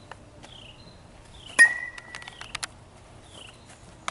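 A metal baseball bat strikes a ball once, about one and a half seconds in, with a sharp crack and a short ringing ping.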